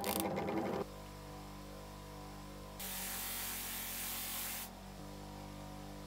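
Bench grinder's 150 W electric motor running steadily at speed with a buffing wheel, giving a constant hum. A brief clattering rattle comes first, and a louder hiss joins the hum for about two seconds midway.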